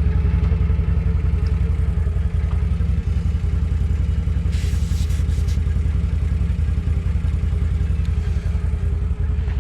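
Small 12-volt portable tire-inflator compressor running steadily, a fast low pulsing chug as it pumps air into a lawn tractor tire, with a brief hiss about halfway through.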